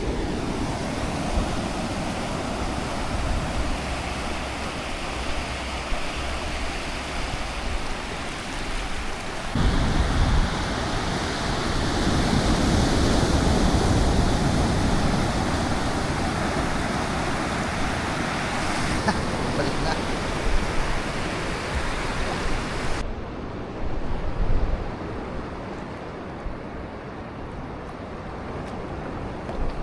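Sea surf washing on the shore, a steady rushing noise whose character changes abruptly a few times.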